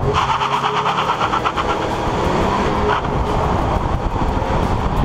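Ford Mustang EcoBoost with a 2.3-litre turbo four-cylinder, driving at speed and heard from a camera mounted low on its side by the front wheel: tyre, road and engine noise together. A fast rhythmic pulsing runs through the first three seconds, then stops suddenly, leaving a steadier rush.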